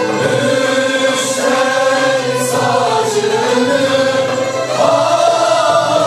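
Mixed choir of men and women singing Turkish classical art music (Türk sanat müziği) in slow, held phrases, accompanied by a small traditional ensemble of violin, cello, kanun and frame drum.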